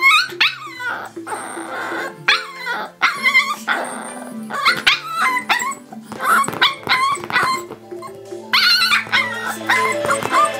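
Very young cockerjack puppy (cocker spaniel × Jack Russell terrier cross) giving a string of short, high-pitched yips and whines that bend up and down in pitch, over background music.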